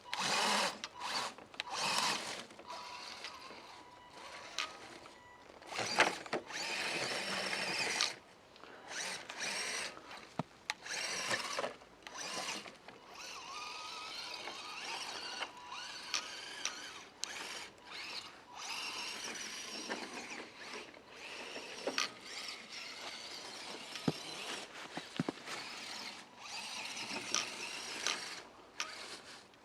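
Axial SCX10 Deadbolt RC crawler's electric motor and gear drivetrain whining in repeated stop-start bursts as the throttle is worked on and off.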